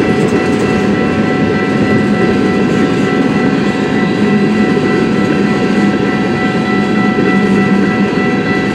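Freight cars of a long CN freight train rolling past at close range: a steady rumble and rattle of wheels on the rails, with steady high-pitched tones over it.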